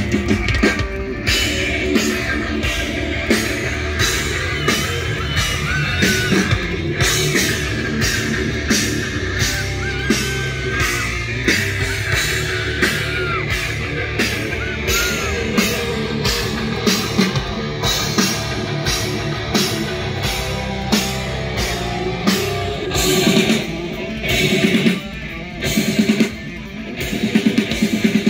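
Live rock band playing loud: electric guitar solo with bending, wavering notes over a drum kit keeping a steady beat about twice a second, with bass underneath. Near the end the band breaks into short stop-start hits with brief gaps.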